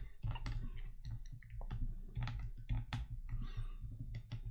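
A stylus clicking, tapping and scratching on a drawing tablet as boxes and arrows are drawn, in an irregular run of sharp ticks. A steady low electrical hum runs beneath.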